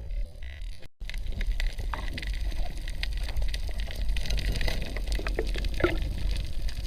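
Underwater ambience heard through a diving camera: a steady low rumble with dense small clicks and crackles throughout, and a short gurgle near the end.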